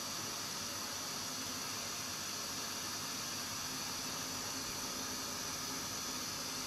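Steady, even hiss of FM radio static from a 1979 Rotel RX-304 stereo receiver's tuner, with no station coming through.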